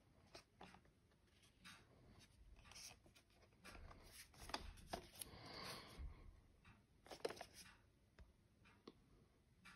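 Faint handling noise of a hand-held digital night-vision binocular being turned over: soft rubbing and light taps of fingers on its housing, with a few sharper clicks in the second half.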